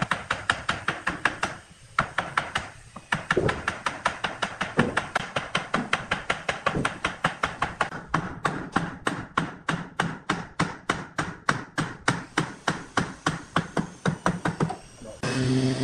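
Wooden mallet rapidly tapping on pine, about five blows a second, driving a curved pine panel down into a slotted wooden base to seat the joint. The blows pause twice briefly early in the run and stop near the end.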